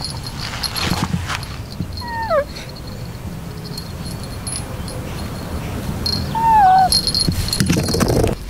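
Tuxedo kitten giving two short, high mews that fall in pitch, one about two seconds in and a louder one near the end. A small bell on a feather wand toy jingles briefly near the end, amid rustling on dry grass.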